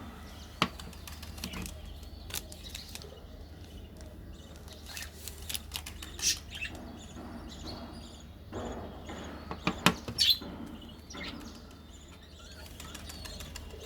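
Close-miked eating sounds: chewing with wet, sticky mouth clicks and smacks, scattered through with sharp clicks, the loudest a few about ten seconds in.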